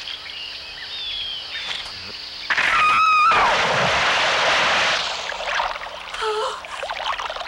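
Insects chirping, then about two and a half seconds in a sudden loud splash as a person plunges into a muddy water-filled pit, with a short high cry at the start. The splashing dies away about two seconds later.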